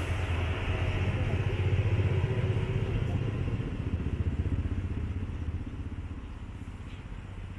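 Low engine rumble of a passing motor vehicle, swelling over the first two seconds and then slowly fading away.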